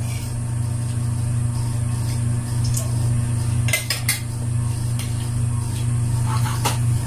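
Plates and spoons clinking a few times during a meal, two clinks close together about four seconds in, over a steady low hum.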